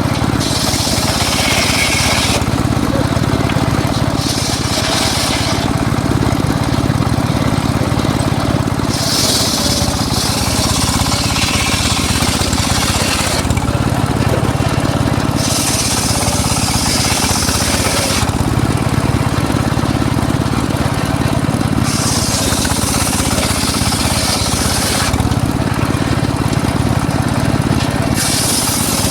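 Homemade circular saw rig running steadily while its blade cuts teak wood. About seven cuts come in passes of one to three seconds, each a high hiss over the machine's steady hum.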